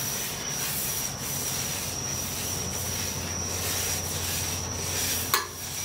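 Paper towel held in metal tongs being wiped back and forth across an oiled, hot steel griddle top, a soft repeated rubbing swish, under a steady low hum and a thin high whine. A sharp click comes about five seconds in.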